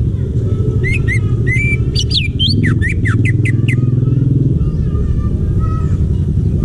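A green leafbird (cucak ijo) singing: a few whistled notes about a second in, then a quick run of sharp downward-swept notes, ending before the fourth second. A steady low rumble, louder than the song, runs underneath.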